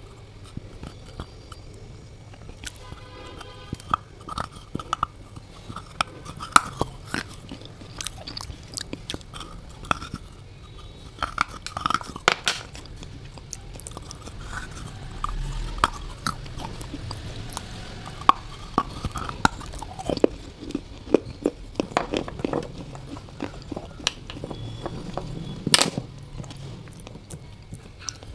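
A person biting and chewing brittle earthen pieces like slate or baked clay close to the microphone: a long run of sharp, irregular crunches and snaps, with a few louder bites.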